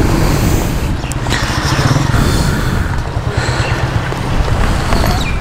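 Motorcycle engine idling steadily, a continuous low rumble.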